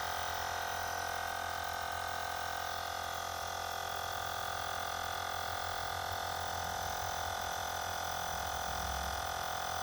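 Xiaomi Air Pump 2 rechargeable inflator running steadily with a constant buzzing whine as it pumps a tyre toward its 33 PSI setting.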